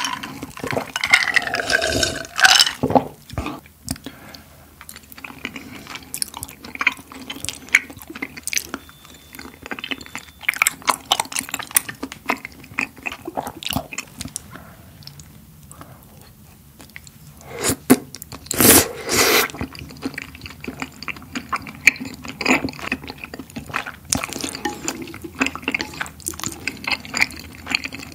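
Close-miked mukbang eating sounds: swallows of a cola drink at the start, then wet, sticky chewing and slurping of rice cakes in a creamy rose sauce. A louder burst of mouth noise comes about two-thirds of the way in.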